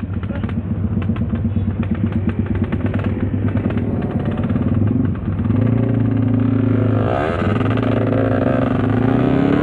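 Motorcycle engine running while the bike is ridden, with a brief dip in revs about five seconds in and the pitch sweeping down then back up around seven seconds in.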